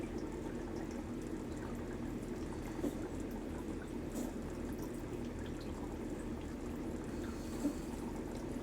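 Water running steadily into a cat's water fountain reservoir as it is being filled.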